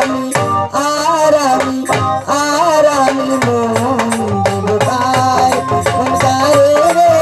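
A Bengali folk song sung live by a woman through a microphone, with a hand-played dhol (two-headed barrel drum) beating a steady rhythm under the gliding vocal line.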